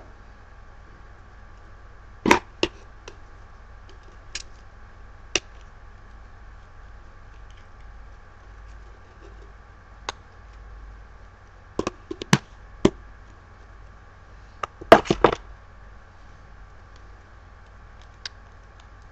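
Scattered sharp clicks and knocks from handling a lidded container and disposable ECG electrodes, the loudest a quick cluster of clicks about three quarters of the way through. A faint steady electrical whine runs underneath.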